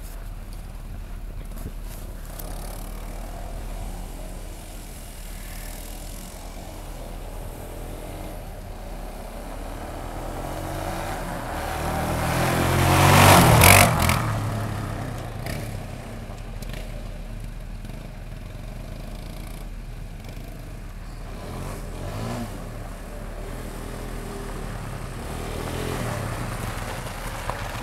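Kawasaki Bayou 220 ATV's single-cylinder four-stroke engine running under way, heard from a car pacing it. About halfway through it swells to its loudest as the quad comes close alongside, then drops back.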